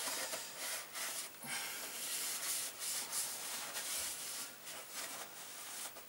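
Shop towel rubbing and wiping inside a Honda CX500 engine crankcase in irregular scrubbing strokes, working at a coating that turns out to be burnt oil that rubs off.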